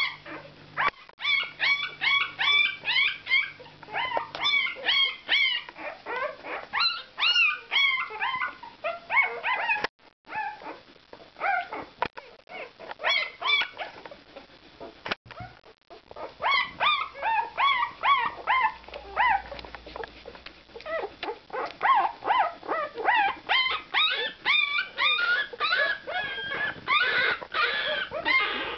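Four-day-old puppies squeaking and whimpering, a rapid stream of short, high-pitched squeals several a second, easing briefly twice along the way.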